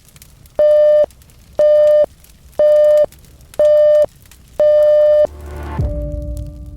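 Pomodoro timer alarm: five short, steady electronic beeps, one a second, marking the end of the 25-minute work period, followed near the end by a bell that strikes and rings on to signal the break. Faint fire crackling sits underneath.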